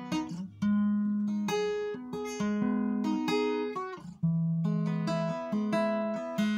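Acoustic guitar played solo, with single plucked notes making a slow melody over bass notes, each note ringing on as the next is picked.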